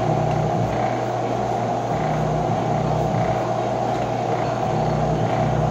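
Milling machine running steadily, a constant machine hum with a strong mid-pitched tone.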